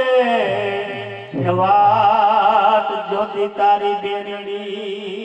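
Gujarati folk-drama song: a voice holding long, wavering sung notes. It slides down about half a second in, then takes up a new held line over a steady sustained accompaniment tone.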